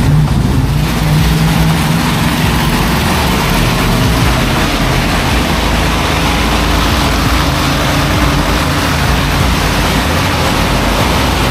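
An engine running steadily amid loud, even noise, with a low hum strongest in the first couple of seconds.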